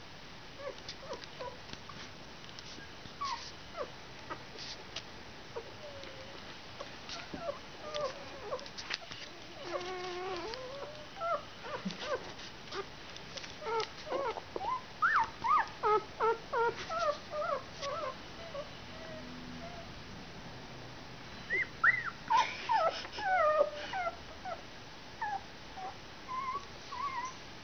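A litter of week-old puppies squeaking and whimpering: many short, high calls that bend in pitch, coming in flurries, busiest around the middle and again about three quarters of the way through.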